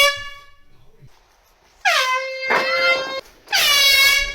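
Air horn blasts. A blast cuts off just after the start, another sounds briefly about two seconds in, and a longer one begins about three and a half seconds in. Each blast dips slightly in pitch as it starts, then holds one steady, buzzy note.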